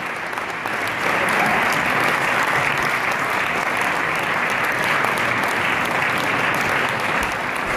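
Audience applauding steadily, slightly louder from about a second in.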